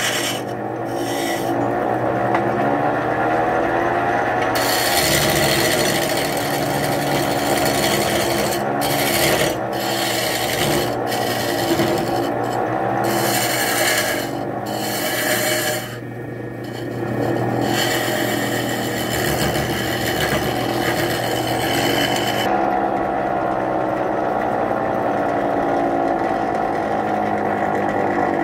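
Wood lathe running with a hand-held turning chisel cutting a large spinning wooden pilão, a steady hiss of shavings coming off in long passes with brief breaks. The cutting stops a few seconds before the end, leaving only the lathe's motor hum and a wavering drone.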